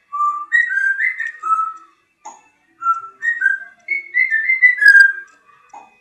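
African grey parrot whistling a tune: a run of short, clear whistled notes stepping up and down in pitch, a pause of about a second, then a second run ending on a longer, slightly falling note.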